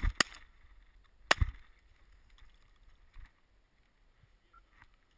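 Shotgun blasts fired at close range: two in quick succession at the start and a third about a second later. A spent shell is ejected as the gun's action cycles.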